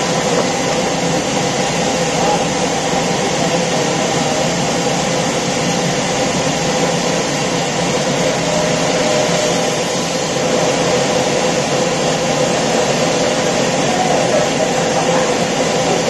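Horizontal band sawmill running steadily: the electric motor and band blade keep up a constant loud noise with a steady whine.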